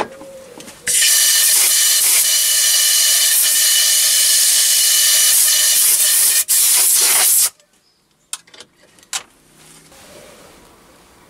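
Compressed-air blow gun blasting air into a Myford ML7 lathe's hollow spindle bore to clean it out. It gives a loud, steady hiss for about six seconds, with one brief break, then cuts off.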